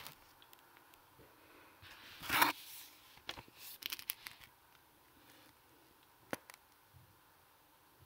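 A hand rustling and smoothing a sheet of calligraphy paper on a felt pad, with one louder swish about two and a half seconds in, followed by a few light rustles and taps and a single sharp tick near the end.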